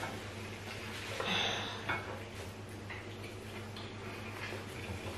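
Quiet eating at the table: small clicks and light contact sounds from hands and plates, with a soft mouth or breath noise about a second in, over a steady low hum.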